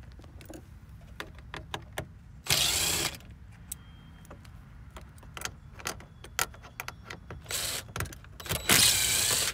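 Cordless drill/driver running in three short bursts, the first about two and a half seconds in and two close together near the end, backing out the screws that hold the radio console. Small clicks and knocks of handling come in between.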